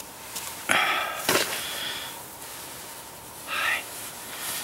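Two short breathy puffs of a person's breath close to the microphone, about a second in and again near the end, with a light click between them.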